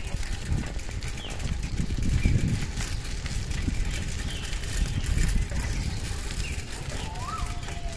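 Outdoor morning ambience: an uneven low rumble with faint, scattered bird chirps. Near the end comes a short rising call over a steady tone.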